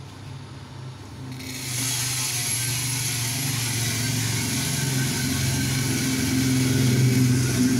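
Green Robusta coffee beans pouring from the hopper funnel into a coffee roaster's preheated rotating drum: a dense rushing rattle sets in about a second and a half in, over the roaster's steady low hum.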